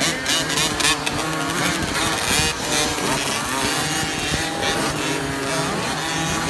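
Several 50cc youth motocross bikes racing past on a dirt track, their small engines revving up and down over one another.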